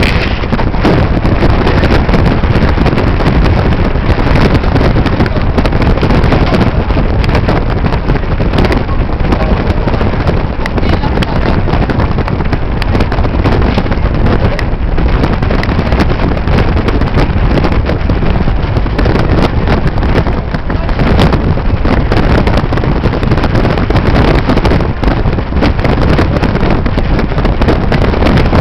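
Strong wind buffeting the microphone on the deck of a moving ferry: a loud, steady rush with no letup.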